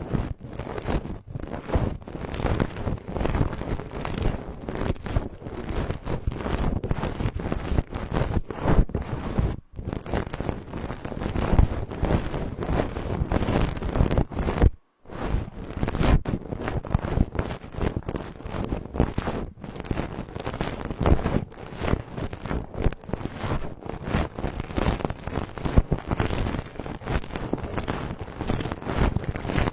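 Close, dense rubbing and crackling against a binaural microphone's ear, made of many small scratchy strokes with two brief breaks, once about ten seconds in and once about halfway through.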